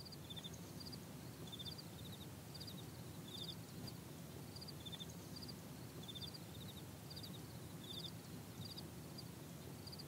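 Faint outdoor ambience: a low steady rumble with small high-pitched chirps in quick groups of three or four, repeating irregularly about twice a second at two alternating pitches.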